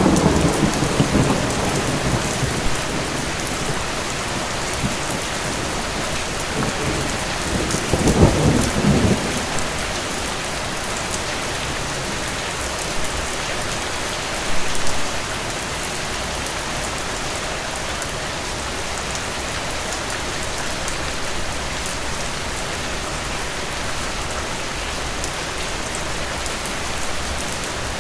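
Heavy rain falling steadily in a thunderstorm, with a thunder rumble dying away over the first two seconds and another short rumble about eight seconds in.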